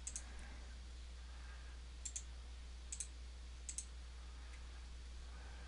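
Computer mouse buttons clicking, four quick double clicks spread over a few seconds, over a steady low hum.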